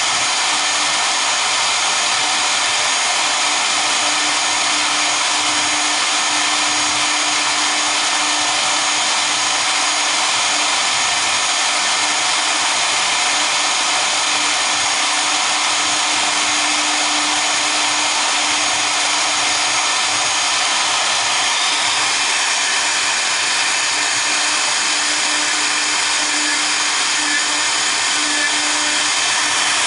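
Both spindles of a double-head CNC router running at once while their V-bits engrave a board: a steady, unchanging whir with a faint hum beneath it.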